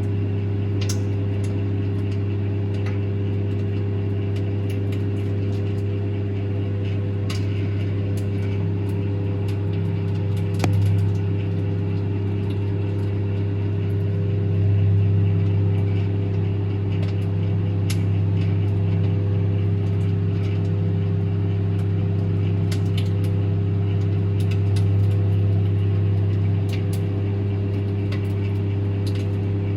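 Microwave oven running: a steady low electrical hum with overtones, and scattered faint clicks and ticks throughout.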